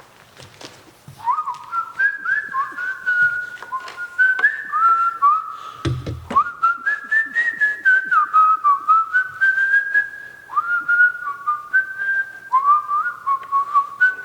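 A man whistling a tune, a run of short notes that each scoop up into pitch, with a brief dull thump about six seconds in and faint clicks of handling.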